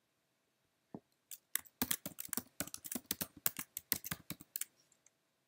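Typing on a computer keyboard: a single keystroke about a second in, then a quick run of keystrokes lasting about three seconds.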